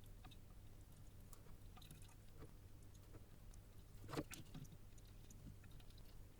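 Near silence over a low steady hum, with faint scattered clicks and taps of soldering work on a circuit board and one sharper click about four seconds in.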